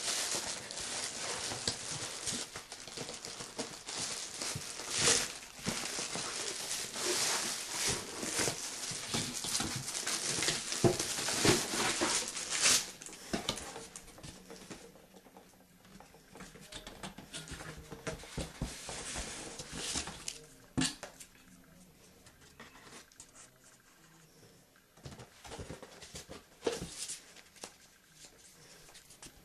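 Packaging being handled: dense rustling and crinkling for roughly the first dozen seconds, then thinning out to scattered clicks and taps.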